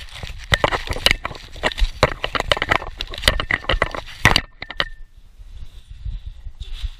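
Bubble wrap crinkling, crackling and popping in a Boston Terrier's mouth as he chews and rips at it, a fast run of sharp cracks. The cracking stops about five seconds in, leaving a low rumble.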